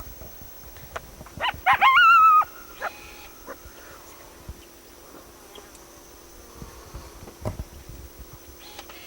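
Coyote yipping and howling: a few sharp rising yips about a second and a half in run into a short held howl, followed by scattered quieter yips. A faint steady tone sounds underneath.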